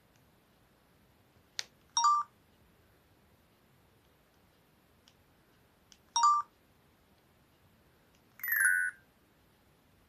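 Newgen C800 mobile phone's keypad: a button click, then a short two-note electronic beep. This happens twice, about four seconds apart, and near the end comes a longer multi-note beep as a menu item opens. Between them are a few faint key clicks.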